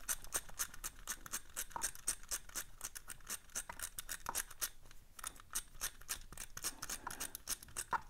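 Quick, light clicking of a Reset brand combination padlock's number wheels spun by thumb to scramble them, several clicks a second, with the lock in its change position.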